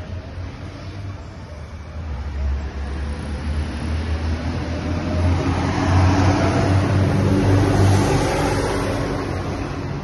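Engine noise from a motor vehicle close by: a low hum that grows louder to a peak about six seconds in, then eases off.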